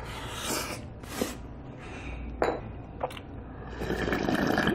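A person slurping hot galbitang (beef short-rib soup) broth straight from the bowl, with short slurps early on and one long, louder slurp near the end; a couple of sharp clicks come in between.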